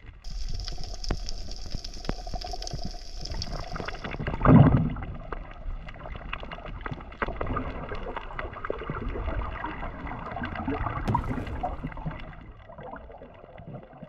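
Underwater sound heard through the camera's housing: a muffled water wash full of small scattered crackles and clicks, with one loud low whoosh about four and a half seconds in.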